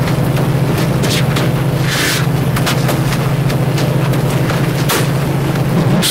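A loud, steady low hum throughout, with a few brief scrapes and clicks as a small hand tool works at a plastic connector's pins.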